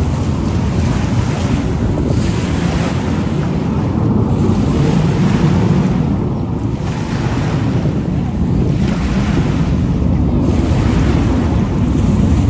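Wind rumbling on the microphone over lake waves washing ashore, the hiss of the surf swelling and easing every second or two.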